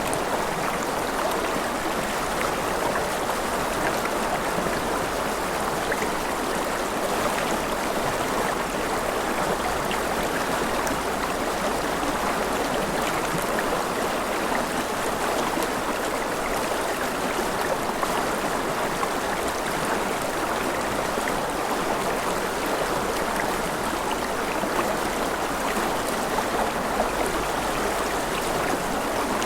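Steady, even rushing water noise with no breaks or changes, presented as gentle rain.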